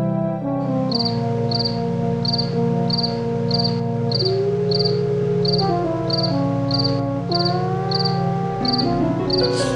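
A cricket chirping in an even rhythm, a short pulsed chirp about every two-thirds of a second, starting about a second in, over soft sustained music chords that carry most of the loudness.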